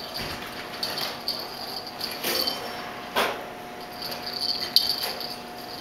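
Handling noise from a kitten clambering about on a lap and against the camera: scratchy rustles, rattles and a few sharp knocks, the loudest about three seconds in.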